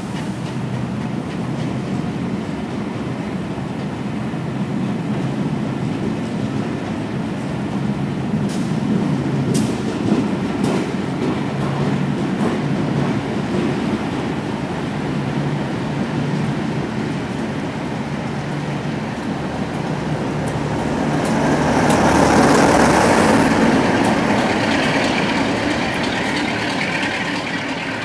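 Passenger coaches of a train rolling past a station platform: a steady rumble of wheels on the rails with a few sharp clicks, swelling louder for a few seconds near the end before easing off.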